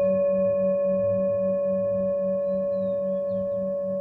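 Singing bowl ringing on after a strike: a steady clear tone with higher overtones and a low hum that wavers about five times a second, slowly fading.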